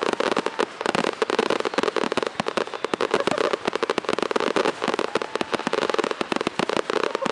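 Fireworks display: a rapid, unbroken barrage of bangs and crackling from many aerial shells bursting at once.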